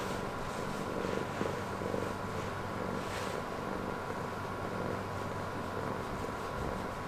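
Domestic cat purring, a low steady rumble with a few faint swells in the first three seconds.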